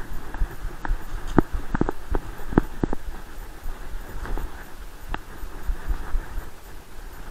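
Muffled thumping and knocking of an action camera jolting on a running dog, with a low thump at each stride. A few sharper knocks fall between about one and three seconds in.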